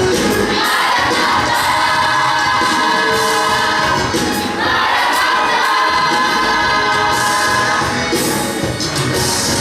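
A vocal group singing a gospel song in several voices, holding long notes in two drawn-out phrases, the second starting about halfway through.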